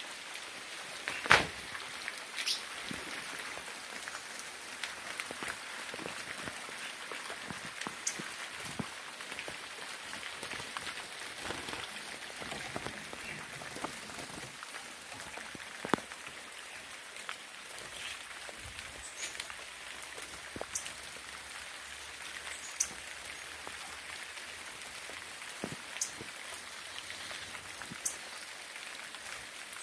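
Rain falling: a steady hiss with scattered sharp drops landing close by, the loudest about a second in.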